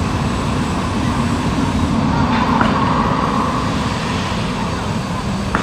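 A heavy vehicle or machine running steadily, a loud even engine-and-machinery noise.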